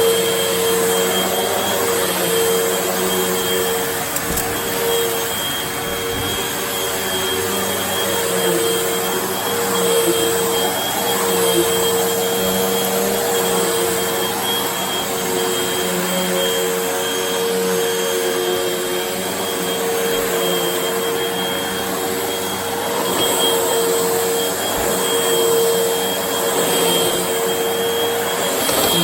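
Vacuum cleaner running steadily: a constant motor hum with a thin high whine over a rush of air, rising and falling slightly in loudness.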